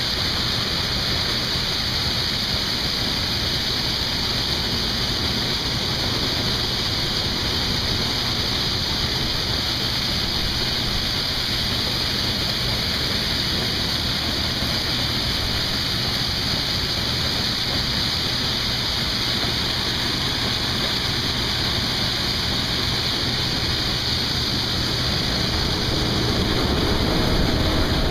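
Case IH 2588 combine running steadily while harvesting corn, an even rushing hiss of machinery and crop flow. Near the end a lower hum comes in and the sound grows a little louder.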